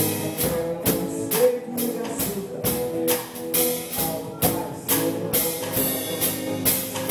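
Band music with a steady beat: percussion strokes over sustained pitched instrument notes, with no singing.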